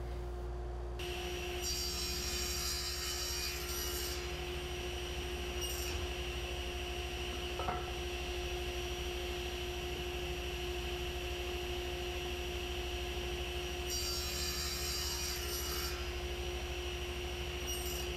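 Table saw running steadily with a constant hum, crosscutting cherry legs to length. The blade rasps through the wood about a second in, briefly again a few seconds later, and once more near the end.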